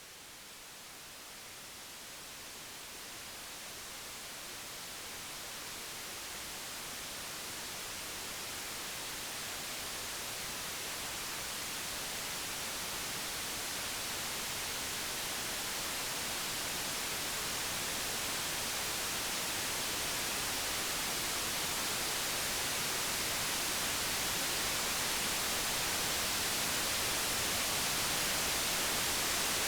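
Steady white noise, an even hiss strongest in the high end, fading in and growing steadily louder throughout.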